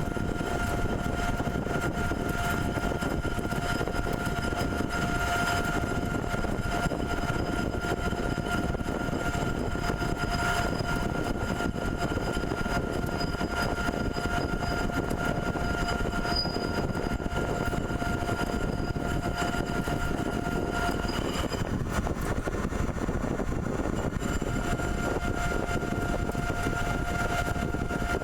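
CNC pipe-threading machine running steadily: a continuous mechanical rush with a constant high whine. Some of the higher tones drop out and shift about three-quarters of the way through.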